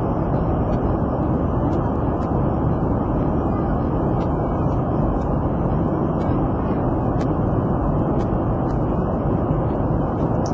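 Steady, low drone of an airliner cabin in flight: engine and airflow noise, even and unbroken.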